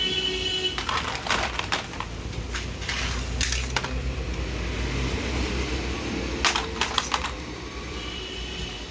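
Plastic toy guns clicking: sharp clicks in small clusters, the biggest group of several quick clicks about six and a half seconds in. A brief high electronic beep sounds at the start and again near the end.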